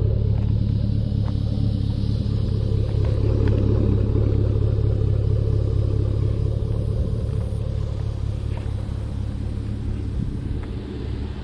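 2010 Chevrolet Camaro SS's 6.2-litre V8 idling steadily with an even, deep rumble, easing slightly toward the end.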